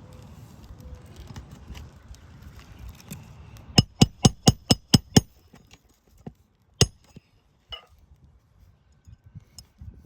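Hammer driving a roofing nail through an asphalt shingle: seven quick ringing strikes, about five a second, a little under four seconds in, then a single strike about two seconds later.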